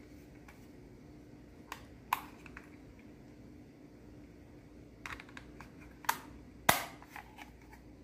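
Plastic clicks and snaps from handling a doorstop alarm's battery cover. There are two clicks about two seconds in, then a cluster of clicks later, with the loudest snap near the end.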